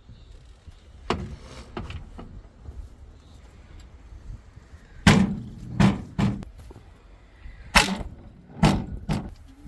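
Heavy machinery at work: a string of about eight loud, irregular thuds and clanks over a low engine rumble, the loudest coming in clusters in the second half.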